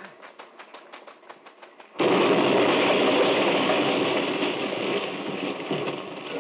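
Radio-drama sound effect of a grenade setting off a store of tank ammunition: a fast, even run of light knocks, then about two seconds in a sudden loud explosion that carries on as a dense, rumbling blast for several seconds, slowly fading.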